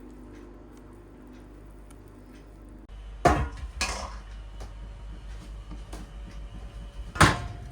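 Kitchenware clattering: two sharp knocks about three seconds in and a louder clank near the end, over a low steady hum.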